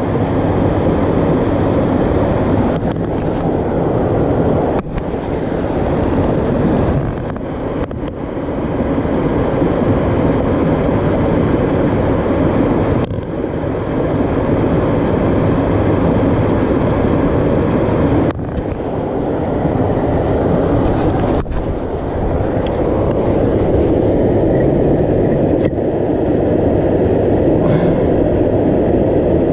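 Steady rushing of creek water pouring over a low dam, loud and even, with a few brief dips.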